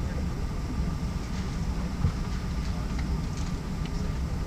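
Steady low rumble of a Boeing 777 cabin on the ground, with a faint steady hum over it and one short knock about two seconds in.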